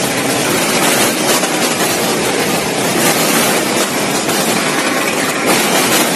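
Multihead combination weigher of a frozen-food packing machine running, a steady, loud mechanical din with light irregular clatter from its stainless-steel hoppers and frozen chicken pieces.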